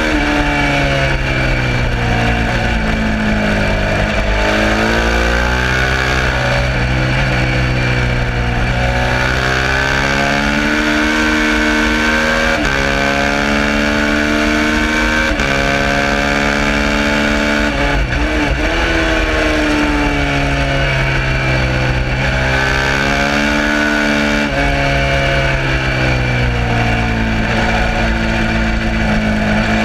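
Suzuki SV650's 645 cc V-twin engine at racing speed. Its pitch climbs under acceleration and drops sharply at each upshift, several times over. Around the middle it falls away through a run of downshifts before climbing again, all over a steady hiss.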